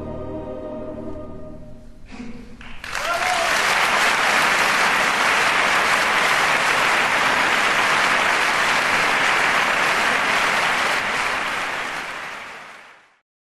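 The music's last held chord dies away. About three seconds in, an audience breaks into applause, which is louder than the music and fades out near the end.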